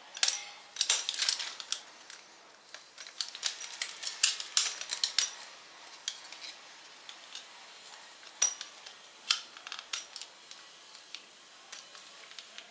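Irregular metallic clicks and clinks of a locking door knob assembly handled by hand, its pinhole release pressed while the knob is worked off the spindle. One sharper click comes past the middle.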